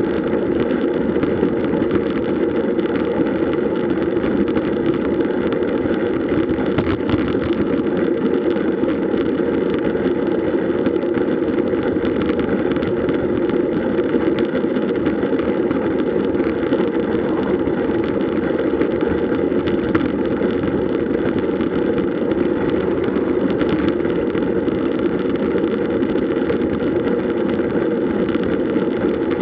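Steady rush of wind and road noise from a road bicycle ride at speed, unbroken throughout.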